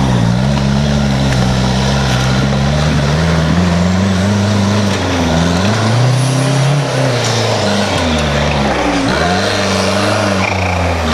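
Off-road truck engine running hard, revving up and down so that its pitch rises and falls several times.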